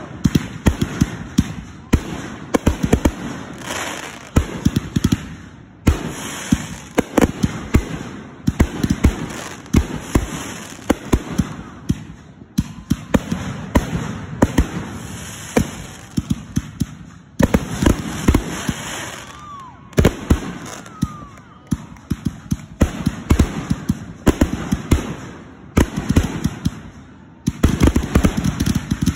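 Aerial fireworks launching and bursting in volleys of sharp bangs, with crackling and a few short whistles between. The firing turns nearly continuous near the end.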